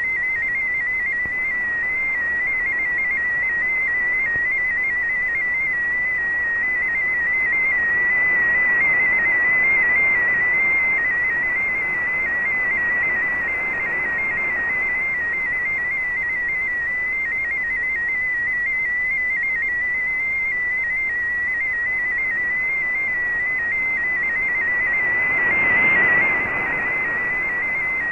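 MFSK16 digital data signal from a shortwave broadcast, received in AM on an Icom IC-R8600: a quick, steadily warbling tone around 2 kHz over shortwave hiss. The hiss briefly swells near the end, from signal fading.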